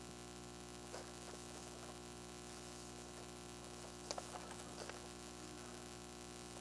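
Steady mains hum, with faint rustling of paper sheets being handled, a little louder about four seconds in.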